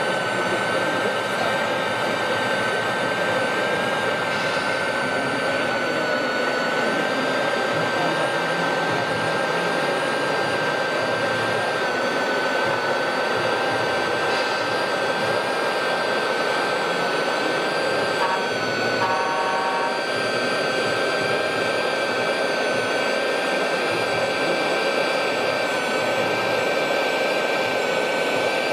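1/16-scale RC Iveco vacuum road sweeper running its suction unit: a steady high whine over an even rushing blower noise. A few short beeps sound about two-thirds of the way through.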